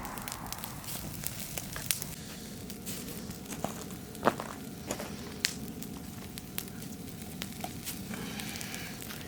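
Wood fire crackling, with irregular sharp pops and snaps and one louder pop a little before halfway.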